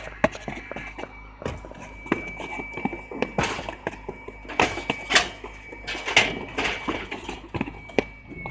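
Corrugated cardboard banana box being folded by hand: repeated sharp knocks and taps as the flaps are creased and pressed into place, with short scraping rustles of cardboard several times in the middle.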